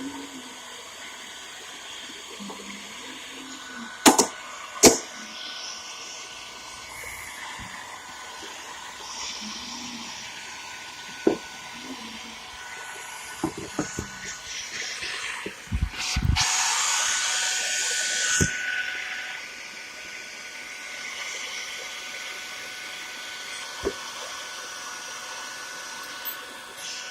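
Hairdryer blowing steadily with a faint whine, heating a motorcycle headlamp to soften its lens sealant, and getting louder for a couple of seconds just past the middle. Several sharp clicks and knocks are scattered through it.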